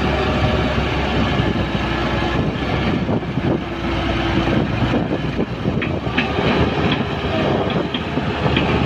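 Heavy diesel earth-moving machinery, an excavator with loaded tractor trolleys, running under load. A steady engine drone with metallic clanks and squeaks comes through in the later seconds.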